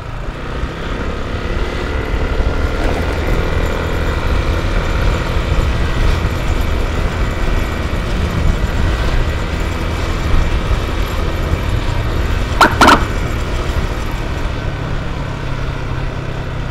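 Motorcycle riding on the road: a steady engine and wind rumble on the rider's action camera. Near the end comes a short double beep of a vehicle horn.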